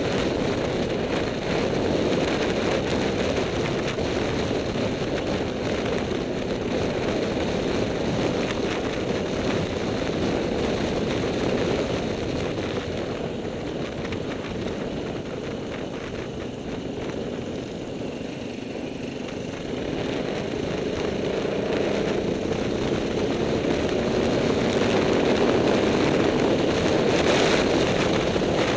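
Motorcycle engine running at road speed, heard from the bike itself under heavy wind noise on the microphone. The sound eases off for a few seconds around the middle and builds again toward the end.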